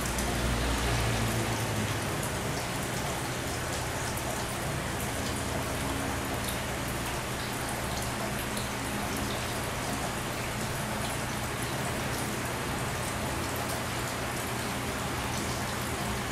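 Steady pattering of water drops splashing onto a water surface, with a low steady hum underneath that is stronger for the first couple of seconds.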